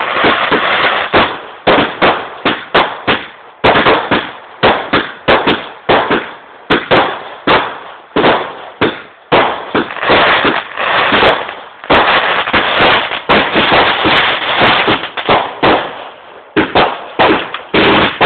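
Fireworks going off in quick succession: sharp bangs, often several a second, which in places come so fast that they run together into a continuous crackle.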